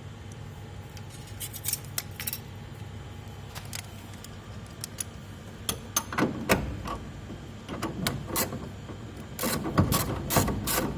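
Metal clicks and clinks of a 13 mm wrench tightening the nuts that hold an air-conditioner fan motor to its mount, scattered at first and busier in the second half.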